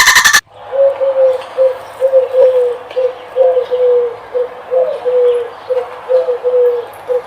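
A loud rattling sound cuts off about half a second in. A bird then calls in a steady run of short, low, hollow notes, all at the same pitch, about two a second, much like a dove cooing.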